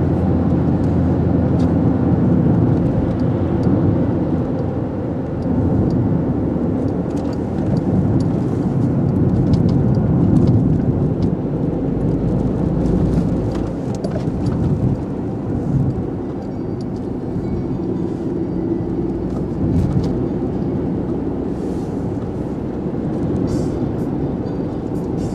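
Steady engine and tyre noise of a car driving along a road, heard from inside the cabin, with occasional faint clicks and ticks over the low rumble.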